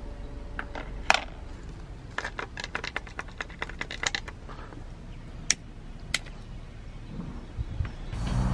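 An iPhone set down on concrete with a sharp click, then a run of quick clicks and spatters as liquid is squirted onto it from a squeeze bottle, over steady outdoor background noise. Music with guitar and drums comes in near the end.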